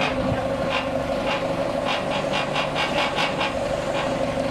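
An engine running steadily at idle, giving a constant mid-pitched hum, with short faint rattles partway through.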